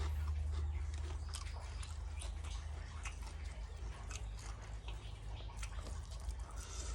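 A person chewing and eating, with many small clicks and mouth sounds, over a steady low hum.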